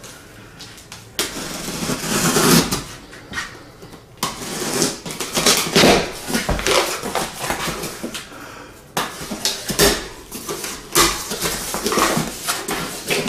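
A knife slitting packing tape along the seams of a cardboard box, in irregular scraping strokes, with the cardboard rustling and a few sharp knocks.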